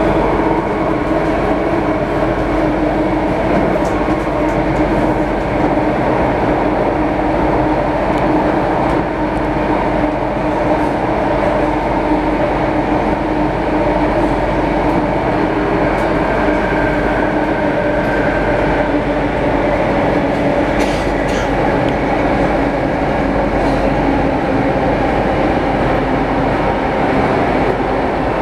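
Interior noise of an SMRT C830C metro train running through a tunnel: a steady, loud rumble of wheels and motors with several steady humming tones and a few faint clicks.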